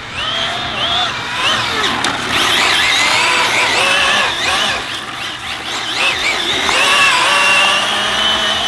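Arrma Felony 6S brushless RC car driven hard, its motor and drivetrain whining and sweeping up and down in pitch over and over as the throttle is worked, then holding a steady high whine near the end.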